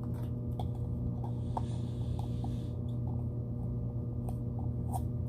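Fingernails picking and peeling sticker seals off a plastic LOL Surprise ball: scattered small ticks and scratches, with one soft peeling rasp in the middle, over a steady low hum.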